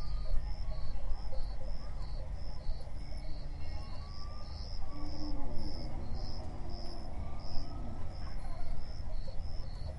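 Crickets chirping steadily, about two pulses a second, over a low rumble, with a few low, falling animal calls midway.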